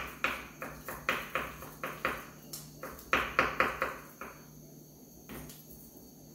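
Kitchen knife mincing garlic on a wooden cutting board: quick chopping knocks, about three to four a second, that stop about four seconds in, with one more tap a second later.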